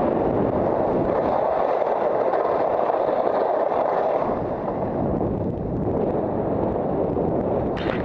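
Steady rushing noise of skiing downhill: skis sliding and scraping over packed snow, mixed with wind rushing over the helmet camera's microphone.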